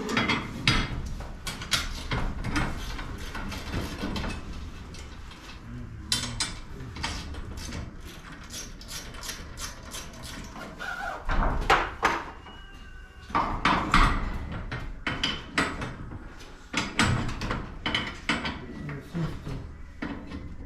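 Irregular clanks, clicks and knocks of hand tools and metal garage door hardware being handled, coming in clusters with short lulls between them.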